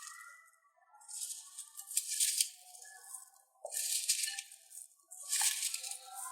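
Slime being squeezed and pressed by hand, giving three crackly, hissing bursts of squishing, with soft background music underneath.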